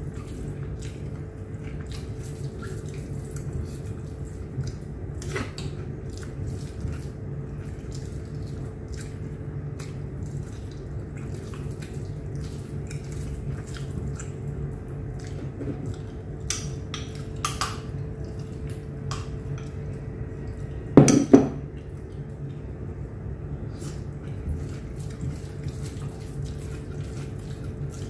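Eating biryani by hand: fingers mixing and squeezing rice on a plate, giving scattered soft clicks and wet squishes over a steady low hum. Two loud knocks close together about three-quarters of the way through.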